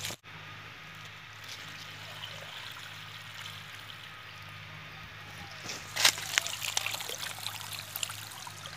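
Water trickling and splashing as it is poured out of a clay pot fish trap onto the ground. The pouring gets suddenly louder about six seconds in, with a patter of small splashes after it.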